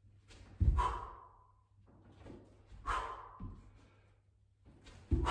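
Three sharp exhaled breaths, about two seconds apart, each with a low thud, from a man doing repeated kettlebell rip-to-open-palm-catch reps.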